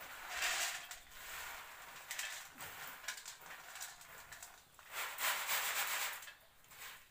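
Popped corn rustling and rattling in a woven bamboo winnowing basket as it is shaken and tipped. It comes in three or four bursts of a second or so each, the loudest and longest near the end.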